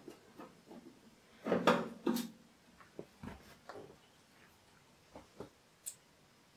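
Knocks and clicks of a screwdriver and screws against the metal lid of a 4U rack-mount computer case as the lid screws are taken out: a sharp knock at the start, the loudest clatter about one and a half to two seconds in, then scattered lighter clicks.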